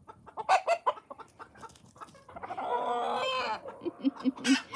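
Groninger Meeuw chickens clucking in a flurry of short calls. About halfway through comes one long drawn-out call, and near the end a run of four quick low clucks.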